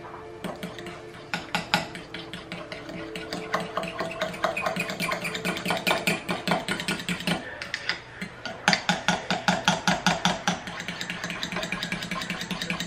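Spoon stirring mayonnaise dressing in a small ceramic bowl: quick, even clicks and scrapes against the bowl, several a second, with a brief pause a little past halfway.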